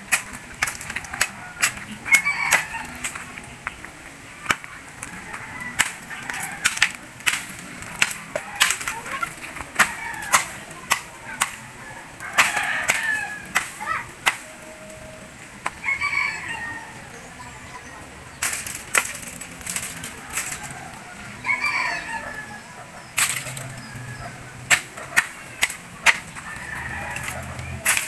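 Bolo (machete) hacking at the base of bamboo culms: sharp, irregular blows, some in quick runs of several strikes, with short pauses between.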